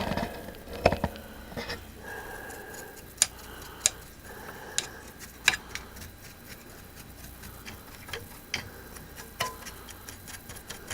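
Scattered light clicks and taps at irregular intervals, from handling tools and parts inside an old radio chassis as it is cleaned.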